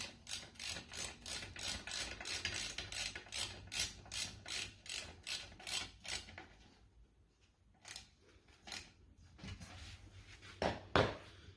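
Ratchet socket wrench tightening a bolt on a metal sofa-bed bracket: the ratchet rasps on each return stroke, about three strokes a second, and stops about six seconds in. After it, a few scattered knocks of metal parts being handled, the loudest near the end.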